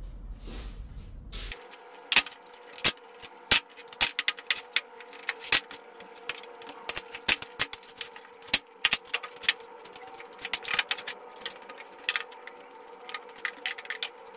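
Rapid, irregular clicking and tapping over a steady hum, starting about a second and a half in after a low rumble cuts off.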